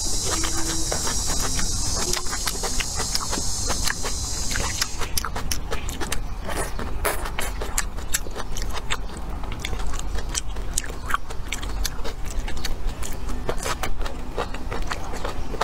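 Close-miked crunching and chewing of raw green vegetables, with many crisp crunches in quick succession. For the first five seconds or so a high, steady insect drone runs underneath, then stops.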